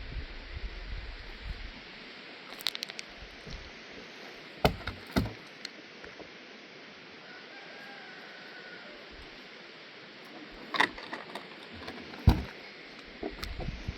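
A steady hiss with scattered sharp knocks or cracks, the loudest two near the middle and two more near the end, and a faint short call about halfway through.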